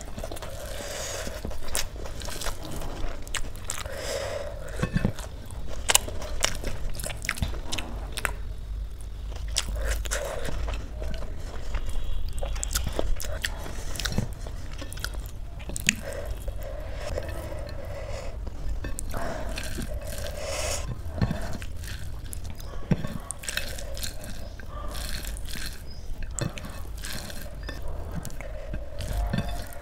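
Close-miked hand mixing rice into curry on a plate: wet squishing of the rice and sauce, with fingertips clicking and scraping against the plate in an irregular run of small sounds. Mouth chewing sounds mixed in.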